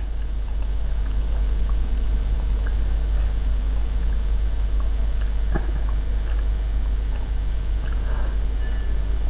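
Steady low hum with a few faint, scattered clicks; the sharpest click comes a little past halfway.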